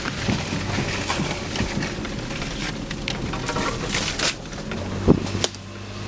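A Jeep Grand Cherokee driving slowly over a rough, rutted dirt track, heard from inside the cab: a steady engine hum with scattered clicks and knocks from the body and cabin as it jolts over bumps, the loudest knock about five seconds in.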